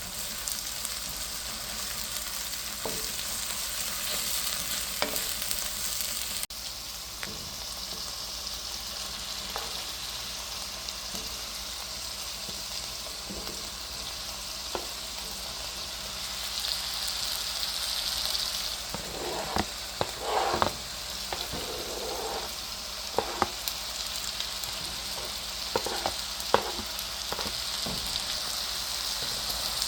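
Food frying with a steady sizzle, stirred with a utensil that clicks and scrapes against the pan now and then, most often in the second half.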